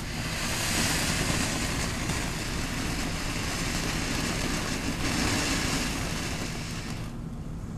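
Ground fountain firework catching with a sharp crack, then spraying sparks with a steady loud hiss that dies down about seven seconds in.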